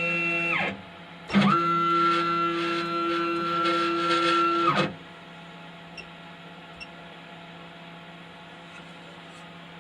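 CNC router's stepper motors whining as the machine jogs. The steady whine winds down and stops about half a second in. It starts again with a rising pitch a moment later, holds for about three seconds, and winds down again about halfway through, leaving a low electrical hum.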